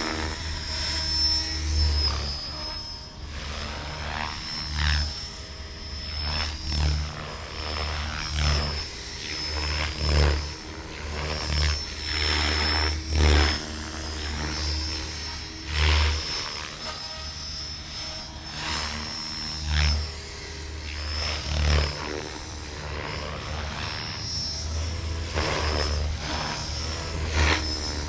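Beam Archon SE 500-size electric RC helicopter in flight: a steady high whine runs under repeated rushing surges of rotor-blade noise every second or two as it manoeuvres.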